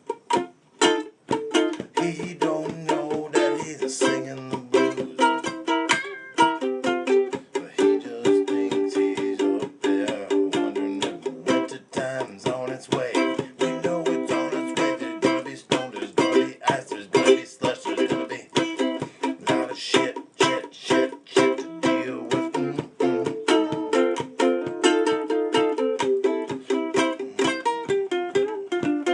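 Acoustic plucked string instrument playing an instrumental blues passage: a busy run of picked notes over a lower bass line.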